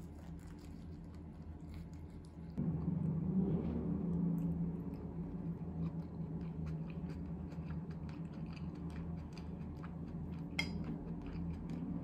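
Eating sounds: a metal knife and fork clicking and scraping on a ceramic bowl while cutting soft stewed cabbage rolls, with soft chewing. One sharper clink comes about ten and a half seconds in, over a steady low hum that gets louder about two and a half seconds in.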